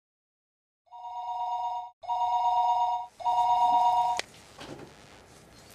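A telephone ringing three times, each ring an electronic two-tone trill lasting about a second. The third ring is cut off by a sharp click as the call is answered.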